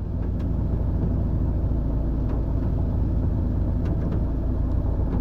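2007 Honda Fit idling with its automatic gearbox in Drive: a steady low drone, the in-gear transmission noise the owner is recording as a complaint.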